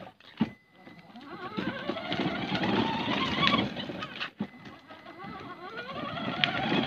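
Electric drive motors and gearboxes of a children's battery-powered ride-on car whining as it drives along, the whine rising in pitch as the car picks up speed. The sound drops out briefly near the start and again about four seconds in, then rises again.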